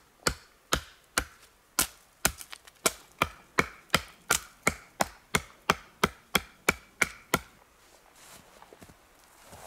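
Large bush knife chopping into a dry dead spruce pole in quick, even strokes, about two to three a second, shaving the bark and outer wood off one side to open up the dry wood inside. The strokes stop about seven seconds in.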